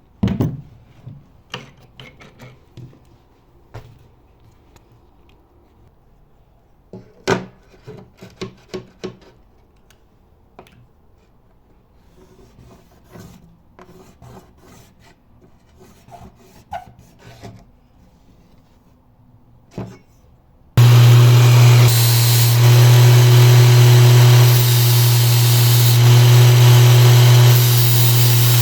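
Light clicks and taps of metal parts being handled, then about twenty seconds in a grinder starts suddenly and runs with a steady loud hum and hiss of abrasive grinding, as a drill bit is sharpened.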